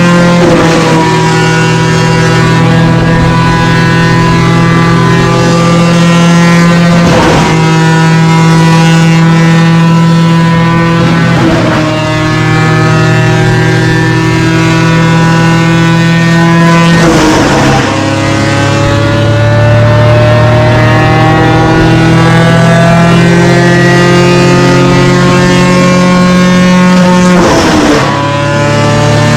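Small engines running hard at a steady, high speed, most likely a chainsaw working through mango wood with another engine running alongside. The pitch jumps suddenly a few times and climbs once, about two-thirds of the way through.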